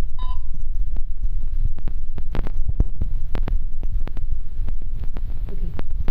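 Heavy low rumble of microphone handling noise with scattered small clicks and taps, as a SIM card is fitted into a GSM alarm panel. A short electronic beep sounds right at the start.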